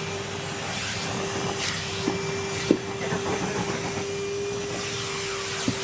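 Hetty cylinder vacuum cleaner running steadily, a constant motor hum and air rush, with a few short sharp knocks, the loudest about midway.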